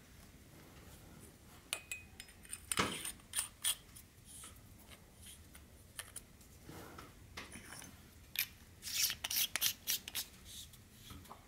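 Sofirn SP40 flashlight's aluminium parts handled and screwed together: the threads scrape and click in short scratchy bursts, in clusters about three seconds in and again around nine seconds.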